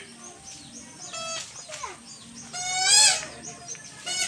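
Animal calls: a short call a little over a second in, then a longer, louder call that rises and falls in pitch about three seconds in.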